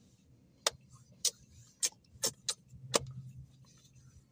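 A short run of sharp, irregular clicks, six in about two and a half seconds, with a faint low hum beneath them.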